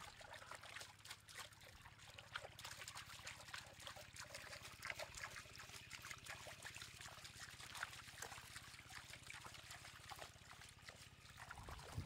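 Faint splashing and trickling of shallow muddy water, many small irregular splashes, as hands grope and grab at fish thrashing in a trough.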